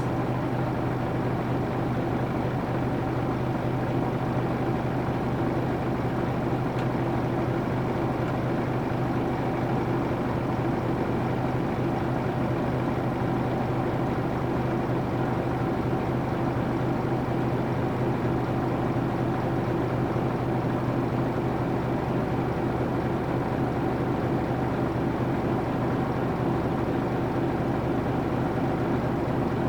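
Nissan Diesel UA440 city bus's PF6 six-cylinder diesel engine running at a steady, unchanging pitch.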